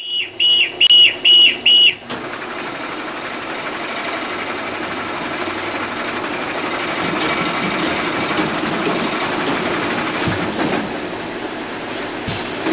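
Five short, loud, high beeps in quick succession, then a six-head automatic net weigh filling machine running with a steady mechanical whir and hum.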